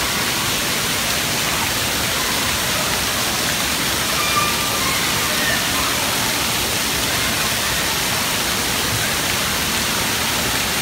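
Steady hiss of water spraying from the water-play posts and splashing onto the wet floor of an indoor water park. Faint distant voices and calls come through now and then.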